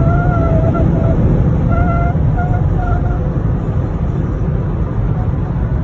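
Steady road and wind rumble inside a moving Mazda CX-5, with a thin whistle that comes and goes in short stretches four times in the first half. The whistle is wind noise that the owner traces to the front windshield.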